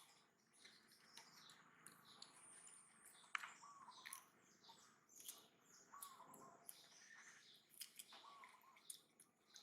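Faint bird chirps, with a short call recurring every two to three seconds and scattered sharp clicks.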